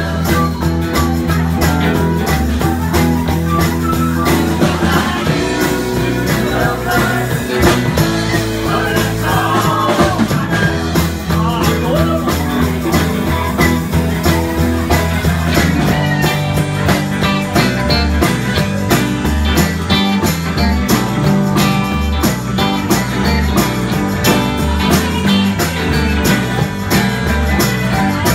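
Live rock band playing: electric guitars, bass and drum kit, with singing in the first part and a steadier, driving beat later on.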